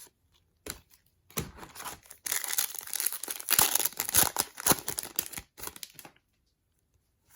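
A trading card pack's wrapper being torn open and crinkled, a dense crackle lasting about four seconds, after a few light clicks of cards being handled.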